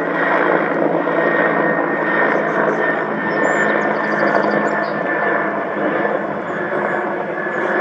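Aircraft engines running steadily: a loud, dense roar with a steady high whine running through it.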